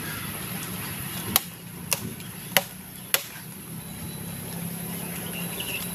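Axe chopping into mango wood: four sharp strokes in quick succession, starting about a second in.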